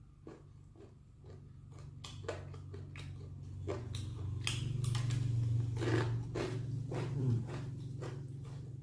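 Close-up chewing of fried chicken and rice, with wet mouth clicks and smacks, over a low droning hum that swells through the middle and eases off near the end.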